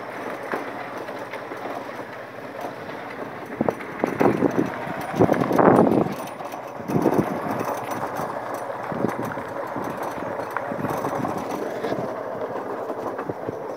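Rustling and scuffing from a handheld phone moving about and the filmer's steps on a dirt track, with a louder scuffle about four to six seconds in.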